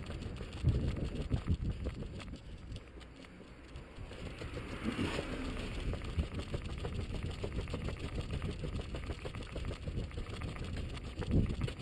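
A runner's footfalls and the bouncing of a body-worn camera, thudding in a steady rhythm, over street traffic; a vehicle passes about five seconds in.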